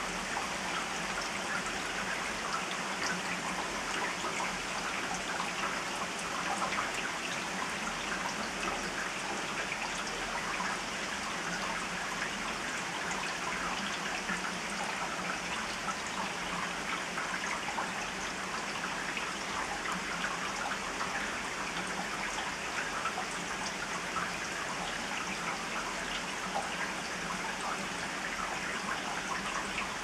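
Heavy rain falling steadily on garden trees, shrubs and roofs: an even hiss of rain with many individual drops ticking through it.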